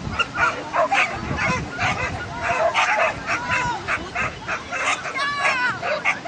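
A dog barking repeatedly in short, excited barks, with a longer, higher yelp about five seconds in.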